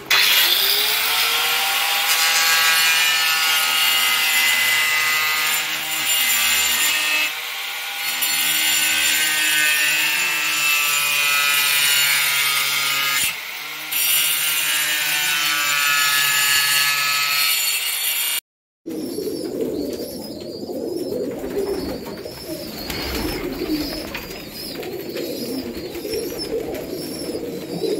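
Handheld angle grinder spinning up and cutting through white board sheets, a high steady whine that dips briefly twice. It cuts off abruptly, and pigeons are then heard cooing.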